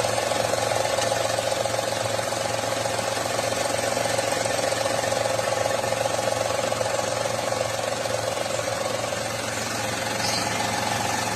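Car engine idling with a strange steady noise from the air-conditioning compressor pulley, heard with the AC switched off. The mid-pitched part of the noise eases briefly about nine seconds in, then comes back.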